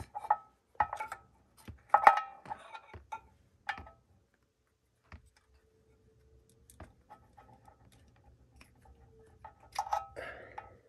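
Sharp metallic clinks and taps, each with a brief ring, as hands work the shift solenoids and their connectors on the exposed valve body of a Toyota A340H automatic transmission. A quick run of clinks comes in the first few seconds, then softer fiddling, then another cluster near the end.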